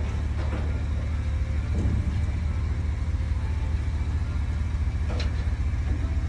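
Box truck's engine idling steadily, with a few short clanks from the truck's rear platform, the clearest about five seconds in.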